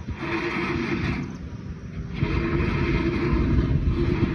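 Railway track maintenance machinery working on the line: a steady engine drone with a low rumble, growing louder about two seconds in.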